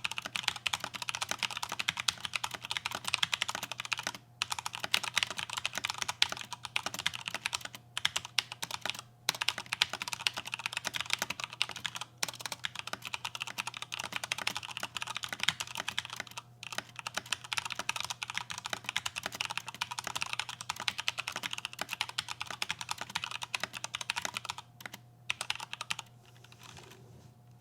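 Fast, continuous typing on a mechanical keyboard, dense keystroke clatter broken by a few brief pauses and stopping shortly before the end.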